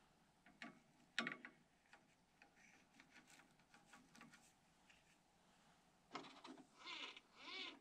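Faint handling noises as hands work a rubber fuel line and a small metal tool on a model airplane engine: a sharp click about a second in, scattered light ticks, and a stretch of rubbing near the end.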